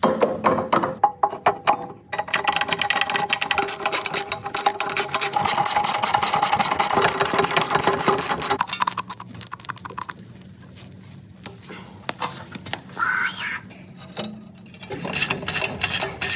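A small machine or power tool running with a rapid clatter and a steady whine, dropping much quieter about nine seconds in, with scattered knocks, then clattering again near the end.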